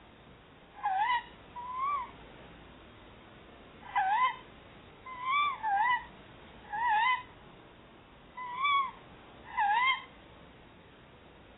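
Tawny owls giving about eight short, wavering calls that rise and fall in pitch. They come singly and in pairs over about nine seconds, some louder and some softer: the birds chattering to each other.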